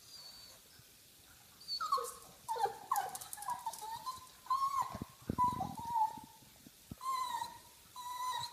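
Pug whining in a string of short, high-pitched whimpers, begging for food, with one brief rough noise a little past halfway.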